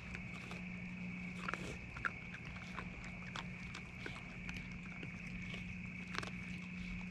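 Raccoons feeding on a jack-o'-lantern pumpkin: scattered clicks, crunches and snuffles of chewing and nosing through dry grass. A steady high-pitched tone and a low hum run underneath.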